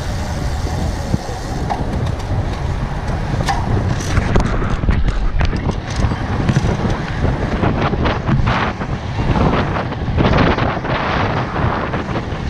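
Wind rushing over the microphone of a camera riding on a moving road bike: a loud, steady low rumble with gusts that come and go.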